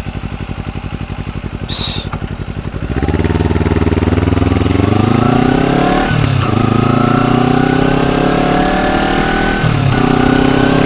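Kawasaki Ninja 250 motorcycle engine idling with an even pulse, then pulling away about three seconds in. The revs climb steadily and drop sharply at an upshift around six seconds in, then climb again and drop at another shift near the end.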